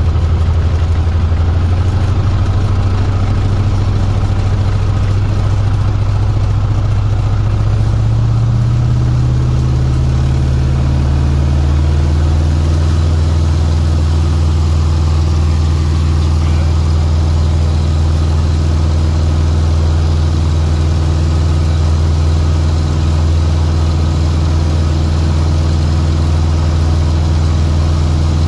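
PJC-2 Harlow's engine and propeller running steadily at low taxi power, heard from inside the cockpit. The engine note shifts slightly higher about ten seconds in as the power changes.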